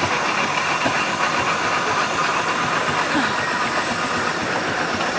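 Robey showman's steam traction engine moving slowly across grass, with a steady hiss of steam.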